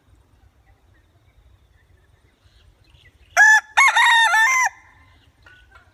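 Rooster crowing once, a single cock-a-doodle-doo a little over a second long beginning about three seconds in: a short first note, a brief break, then a longer call that steps down in pitch.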